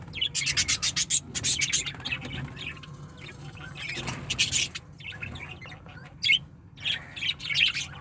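Budgerigar nestlings squawking in several short, harsh, rasping bursts while being handled in the nest pot.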